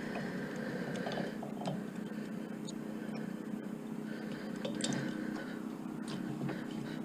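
Light metallic clinks and ticks with bits of scraping as a wrench works a barbecue's propane tank loose from its threaded fitting, over a steady low hum.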